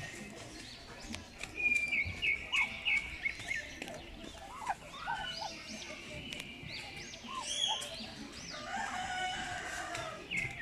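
A flock of African lovebirds chattering in shrill, short chirps, with a quick run of five chirps about two seconds in and busy overlapping calls later. A longer, lower call comes near the end.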